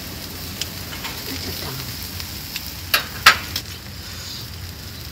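Beef and sausages sizzling on a charcoal grill, a steady hiss. A few sharp clicks from metal tongs handling the meat break through it, the loudest two close together about three seconds in.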